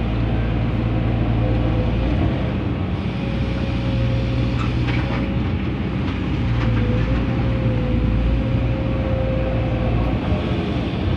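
Komatsu PC200-10 hydraulic excavator working: its diesel engine running steadily under load, with a thin hydraulic whine that dips and rises as the machine moves. A few brief rattles come about halfway through.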